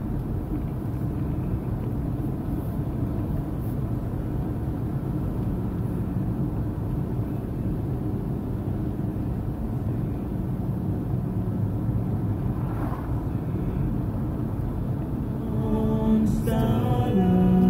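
Steady low rumble of a car's engine and road noise heard inside the cabin while driving. Near the end a man's voice starts singing over it, and it gets louder.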